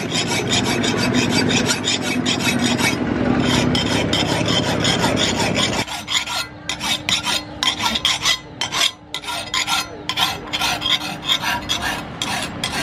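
Hand file rasping along the edge of a steel knife blade forged from bearing steel, in quick repeated strokes. The strokes turn more separate, with short gaps between them, about six seconds in.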